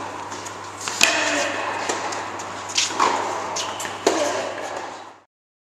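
Tennis racket striking the ball in a reverberant indoor hall: three sharp hits roughly a second and a half apart, with fainter knocks between. The sound fades out about five seconds in.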